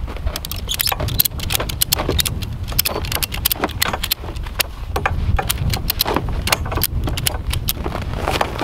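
Ratchet strap being tightened: the metal ratchet handle is worked back and forth, its pawl clicking in quick irregular runs.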